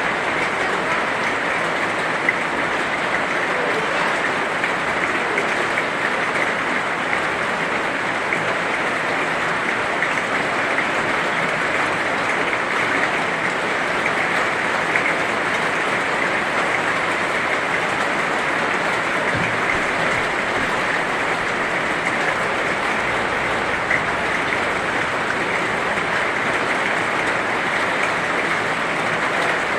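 Heavy rain falling steadily, a dense even hiss of many drops with faint scattered ticks of individual drops.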